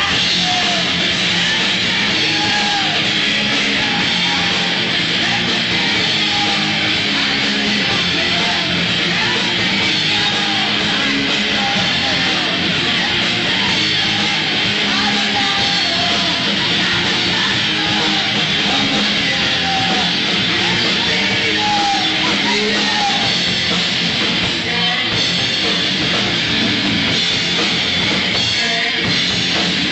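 Live rock band playing loud, distorted guitar rock, with the full band going throughout.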